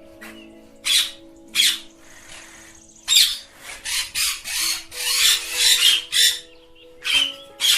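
Ringneck parakeets squawking in short, shrill screeches: two single squawks about a second apart, then a fast run of squawks lasting about three seconds from three seconds in, and two more near the end.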